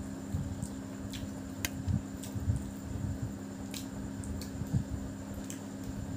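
Fingers mixing and gathering biryani rice on a plate: soft squishing, with a scattered few light clicks.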